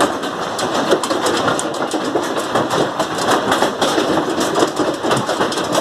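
Hailstones pelting down with heavy rain, a dense, loud clatter of many small impacts.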